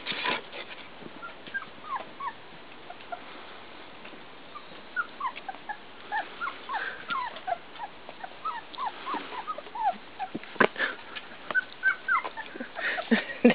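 Four-week-old puppies whimpering and squeaking: many short, high whines that mostly fall in pitch, thickening in the second half, with an occasional sharp bump.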